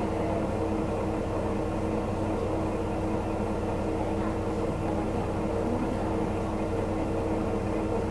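Steady running noise of a diesel railcar heard from inside the car: an even hum from the engine with a low rumble underneath, unchanged throughout.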